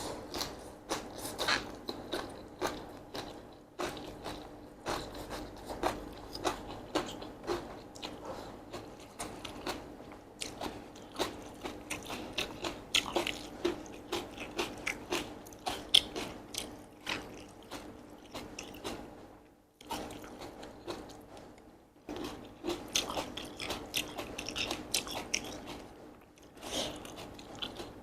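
Close-miked chewing of chewy sweet-potato glass noodles (japchae) with vegetables: wet, sticky mouth clicks and smacks come several a second, broken by a few short pauses.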